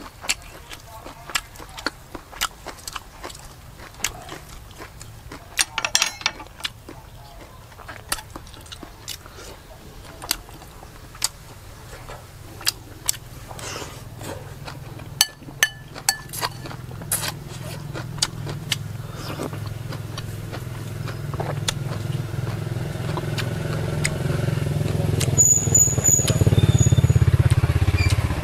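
Close-up eating sounds: chewing of fresh raw vegetables, with many sharp crunches and clicks. Over the second half, a vehicle engine rumbles underneath and grows steadily louder, becoming the loudest sound near the end.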